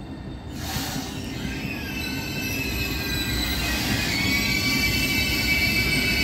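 Italo high-speed electric train pulling into the platform: a rush of air as the front passes about half a second in, then high brake and wheel squeal in several tones as it slows, growing louder.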